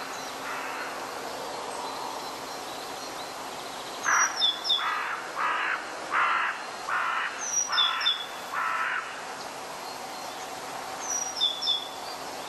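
Birds calling outdoors: a run of six short, harsh calls in the middle, and a small bird's brief, high, falling chirped phrase repeated three times, about every three and a half seconds.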